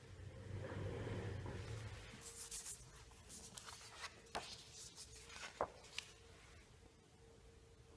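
Faint handling of a sheet of paper on a desk: soft rubbing and rustling by hand, with a low rumble in the first two seconds and a few sharp clicks a little after the middle, over a faint steady hum.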